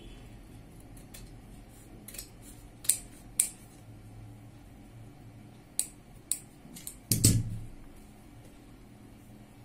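Large steel tailor's shears snipping through a stiff white buckram strip, giving a few sharp, separate snips. About seven seconds in comes a heavier clunk as the shears are set down on the table.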